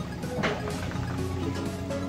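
Background music with held notes, and a brief sharp noise about half a second in.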